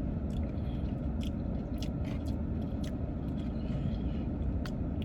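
Steady low rumble of a car cabin with the engine running. Over it come scattered short, sharp clicks of eating and chewing close to the microphone.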